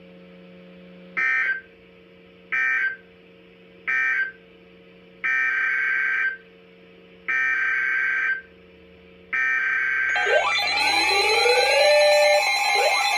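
Weather radio EAS/SAME digital data bursts: three short screechy bleeps about a second and a half apart, the end-of-message code, then three longer one-second bursts, the header of the next alert. Just after the last burst, a loud alert tone with rising, siren-like sweeps starts and repeats about every two and a half seconds.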